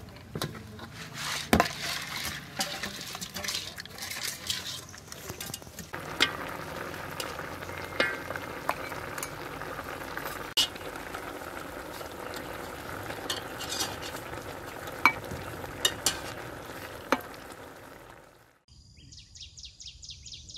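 Fish braising with sugarcane in an aluminium pot: a steady sizzle and bubbling, with a metal ladle stirring and clinking sharply against the pot. Near the end the sizzle cuts off and a fast run of high chirps follows.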